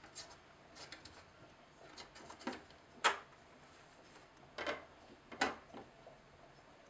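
Plastic microchip cat flap clacking as a cat pushes through it: a few sharp knocks of the swinging flap against its frame, the loudest about three seconds in.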